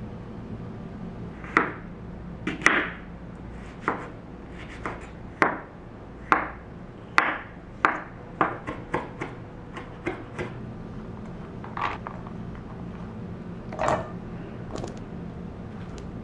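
Chef's knife chopping vegetables on a wooden cutting board: sharp knocks at uneven intervals, coming about three a second for a couple of seconds midway, then thinning out.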